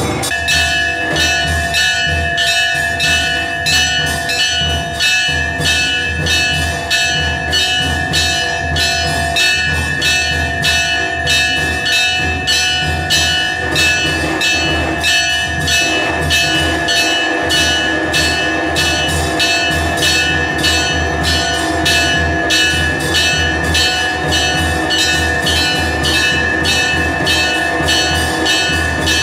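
Temple bells clanging in a fast, even rhythm during an aarti, their ringing tones sustained between the strikes, with a low steady beat underneath.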